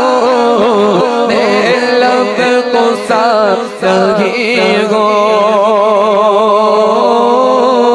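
A man singing a naat, an Urdu devotional poem in praise of the Prophet, in ornamented runs that bend up and down. From about five seconds in he holds one long note with a wide vibrato.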